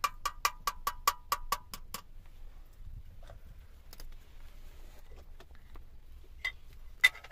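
A run of quick metallic clinks at a small metal teapot, about five a second for two seconds, each with a short ring. Two more single clinks come near the end.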